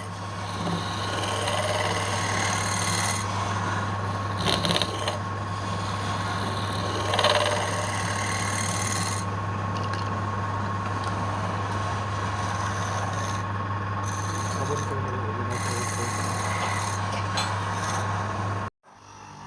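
Wood lathe running with a steady motor hum while a tool scrapes and rubs against the spinning wood, with a couple of brief louder catches. It cuts off abruptly near the end.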